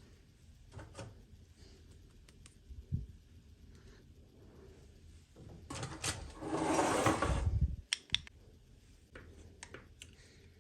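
Small plastic toy pieces and packaging being handled during an unboxing, making scattered small clicks and taps. A little past the middle comes one louder stretch of packaging noise about two seconds long.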